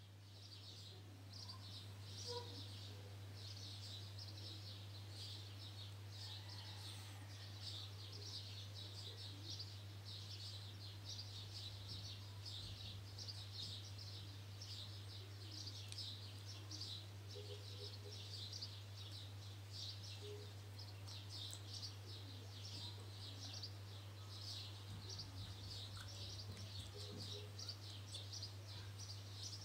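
Faint high-pitched chirping in continuous repeating pulses, over a steady low hum.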